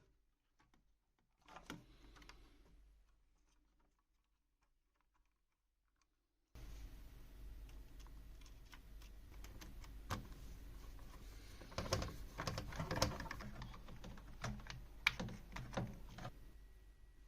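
Irregular small clicks and taps, sparse at first, then many in quick succession over a steady low hum that starts suddenly about six seconds in.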